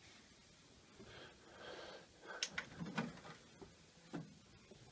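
Built-in DVD drive of a Sylvania CRT TV/DVD combo ejecting a disc it has rejected after a disc error. A faint whir about halfway through, then several sharp clicks and clunks as the tray comes out.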